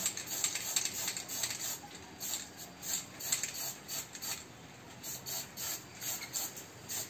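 Aerosol spray-paint can hissing in short bursts, two or three a second.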